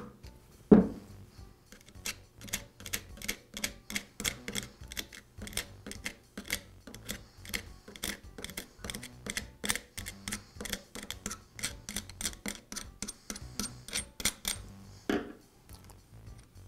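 A screwdriver set in a notch of a drill press spindle's flat nut, tapped with a mallet to knock the nut loose. There is one hard strike about a second in, then a steady run of light metallic taps about four a second, and a last tap near the end.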